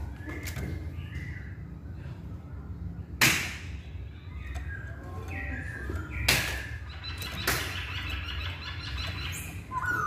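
Poksay laughingthrush calling in short, clear whistled phrases, broken by three sudden loud flutters or knocks, the first about three seconds in. A low steady hum runs underneath.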